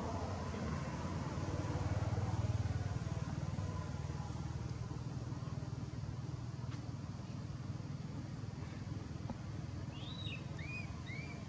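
Low steady rumble of a motor vehicle engine running nearby, swelling slightly a couple of seconds in. Near the end, a few short high chirps.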